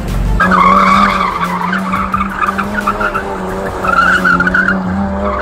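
BMW M2 Competition's twin-turbo inline-six held at steady revs while the rear tyres squeal through a donut. The squeal swells twice, about a second in and again near four seconds.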